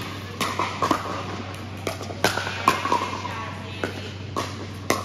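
Irregular sharp pops of pickleball paddles striking the hollow plastic ball and the ball bouncing on the court, about eight in all, with some short voice calls among them.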